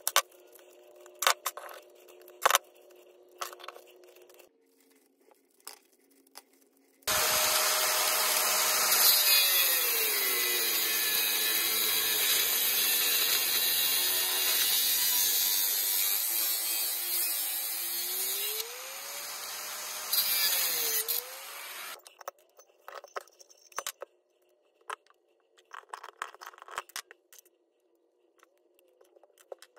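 Angle grinder cutting through a refrigeration compressor's steel shell for about fifteen seconds, its motor pitch dipping under load and recovering twice. Before and after it, hand tools click and snip at a workbench as copper and aluminum are stripped.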